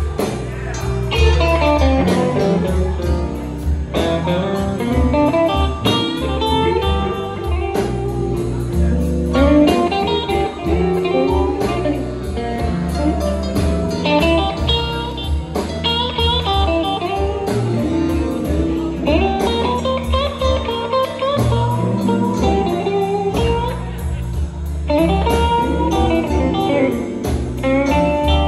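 Live blues band playing: electric guitars over a drum kit with a regular cymbal beat and a heavy bass line.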